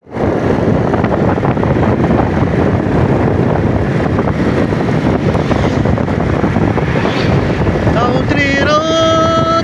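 Wind rushing over the microphone of a moving motorcycle, mixed with engine and road noise. About eight seconds in, a singing voice starts on long held notes over the wind.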